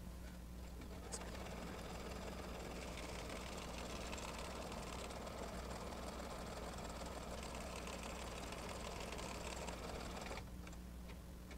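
Computerized embroidery machine stitching a tack-down line to hold the background fabric in the hoop. It runs steadily and stops about ten seconds in.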